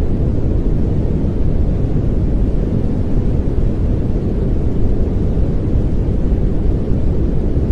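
Continuous pink noise: a steady, even rumbling hiss with its weight in the low end, unchanging throughout.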